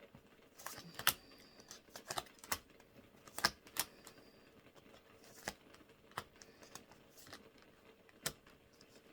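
Tarot cards being handled and laid out on a table: irregular light clicks and taps, about a dozen in all.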